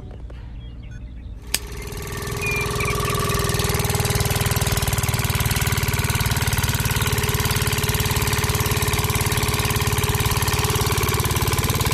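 A small engine starts about a second and a half in with a sharp click, builds up over a couple of seconds and then runs steadily at a fast, even rate.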